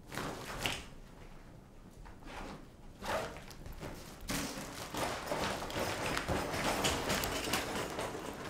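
Clothes and a backpack rustling and thudding as they are rummaged through and tossed about on a bed, with a few separate handling noises at first and busier, continuous rustling from about four seconds in.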